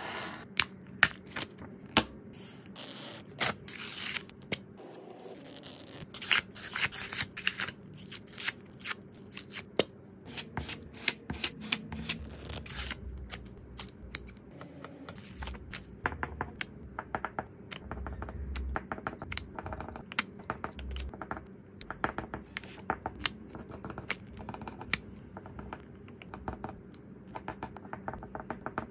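Close-miked paper-crafting sounds with no music: stickers peeled and pressed onto grid memo paper, small scissors snipping around a sticker, and paper and plastic rustling. The sound comes as a steady run of small scratches and sharp clicks, with a few soft thumps on the desk.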